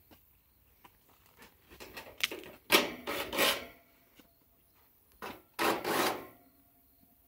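Two short spells of scraping and rubbing with scattered light clicks, from tools handled against the sheet-metal top of an air-conditioner condenser.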